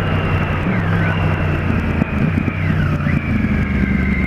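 Triumph Street Triple R's 675 cc three-cylinder engine running under way, heard through heavy wind rush on a helmet-mounted camera. The engine note shifts a few times as the throttle changes, and a high whine dips in pitch twice.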